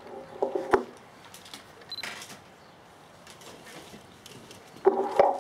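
A short pause filled with a few small clicks and handling noises, the sharpest one under a second in. A voice starts speaking near the end.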